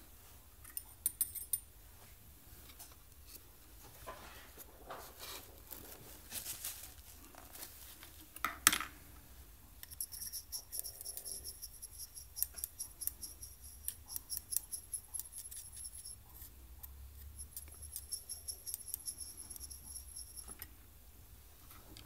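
Paintbrush stirring and tapping paint inside a small steel cup: two runs of rapid clinks of several seconds each, the cup ringing with a high tone under them. A single sharp knock comes before them.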